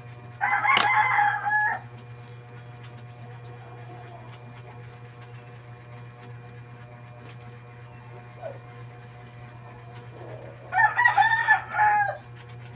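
A rooster crowing twice, once about half a second in and again near the end, each crow lasting just over a second, over a steady low hum.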